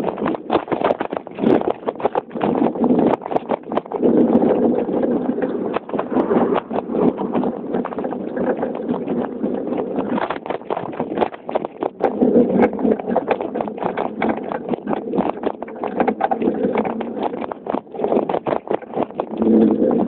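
Wind buffeting the microphone of a camera riding on a moving bicycle, with dense, irregular rattling and knocking as the bike and mount jolt over the pavement.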